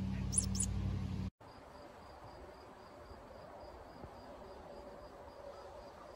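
Toy mouse running with a steady motor hum and giving a short high electronic squeak. About a second in, this cuts off abruptly to a faint background of insects chirping, about three chirps a second.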